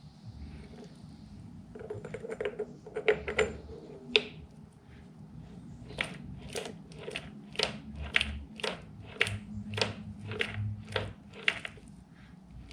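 Short, regular strokes, about two a second, from hand work on a metal part being reshaped after weld build-up, preceded by a few irregular sharp knocks.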